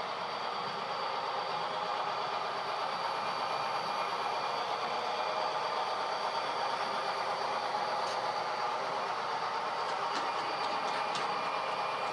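Model freight train with several diesel locomotives running past on the layout track: a steady rolling rumble and whir of wheels and motors, with a few faint ticks later on.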